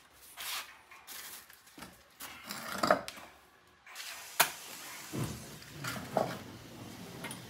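Scattered handling noises: a long metal burner pipe on a rubber hose being moved and knocked against the clay tandoor, with brief rustles and a sharp click about four and a half seconds in.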